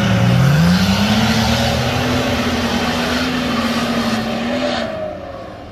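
An off-road vehicle's engine under load: the revs dip, then climb about a second in and hold steady, with tyre and ground noise underneath, fading away near the end.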